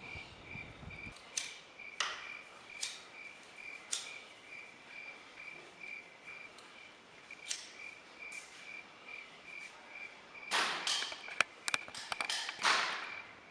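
A cricket chirping steadily, a few chirps a second, with sharp clicks now and then. About ten seconds in comes a louder stretch of rustling noise and clicks.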